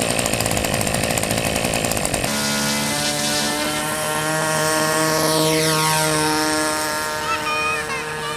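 Small electric RC foam airplane's motor and propeller buzzing. It is rough and rapidly pulsing at first, then about two seconds in it changes abruptly to a steadier whine, with a falling sweep in pitch in the middle.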